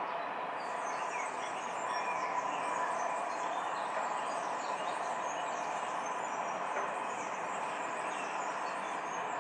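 Distant freight train of hopper wagons rolling along the track, a steady rushing noise of wheels on rails, with small birds chirping over it.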